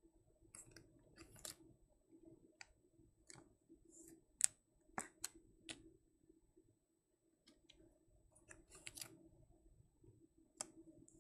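Scattered light clicks and rustles of hands handling trading cards and rigid plastic card holders on a tabletop, at irregular intervals over a faint steady hum.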